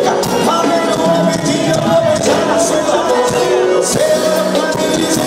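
Forró band music with a steady drum beat and a held melody line.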